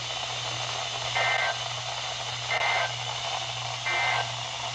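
EAS end-of-message signal from a weather radio: three short bursts of SAME digital data tones, evenly spaced about a second and a half apart, marking the end of the tornado warning. They sound over a steady radio hiss and hum.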